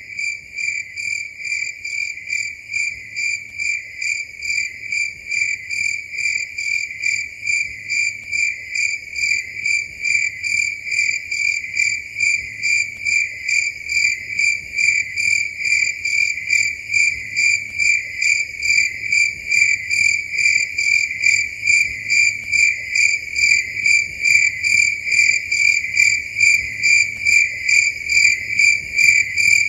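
Cricket chirping in a steady, even rhythm of about two high-pitched chirps a second, growing slightly louder over the stretch.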